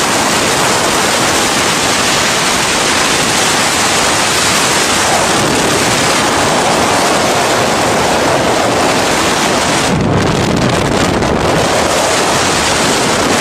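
Strong wind blowing hard against the microphone: a loud, steady rushing noise that shifts slightly about ten seconds in.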